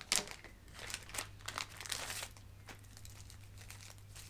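Clear plastic packaging crinkling and rustling as it is opened and handled, with a dense run of crackles over the first two seconds that then thin out. A low steady hum sits underneath.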